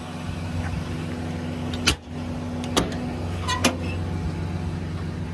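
Ram 5500's 6.7 Cummins inline-six diesel idling steadily, with three sharp clicks and knocks about a second apart from the service-body compartment doors and latches being handled.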